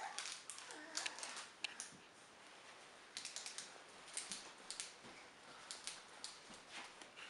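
Plastic candy wrappers crinkling and clicking as small hands rummage in a bowl of wrapped candy and carry a piece off. The sound is a string of short, quick clicks and rustles that comes in clusters, with a quieter gap about two seconds in.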